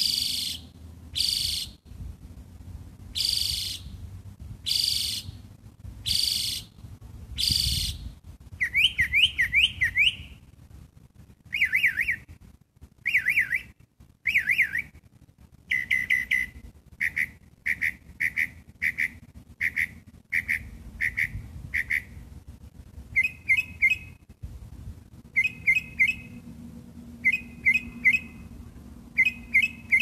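Songbird singing, which the uploader takes for a gray catbird. It starts with six harsh, raspy notes about a second apart, then runs of quick high whistled notes, each phrase repeated several times over. It ends in short two- and three-note chirps.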